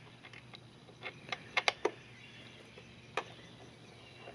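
Sharp clicks and taps of hard plastic parts on a Zodiac MX6 pool cleaner as they are handled and fitted back together: a quick run of clicks between about one and two seconds in, and one more just after three seconds.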